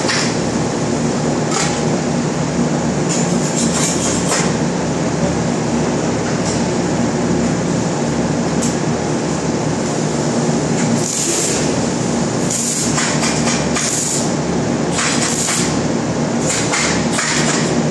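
Loud, steady factory-floor machinery din with a low hum, joined in the second half by several short bursts of hissing from arc welding on a steel frame.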